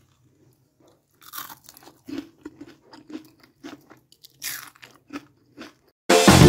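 A crispy fried red poha and potato snack crunching: a string of sharp, irregular crunches over several seconds. Loud music starts abruptly near the end.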